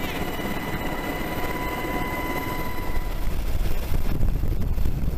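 Helicopter noise heard from the aircraft: engine and rotor running as a dense low rumble, with a steady high whine that fades out about three seconds in, after which the low rumble grows heavier and gustier.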